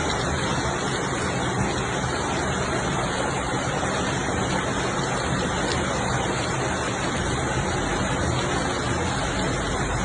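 A steady, loud rush of water in a storm, heavy rain and running floodwater, with no separate events standing out.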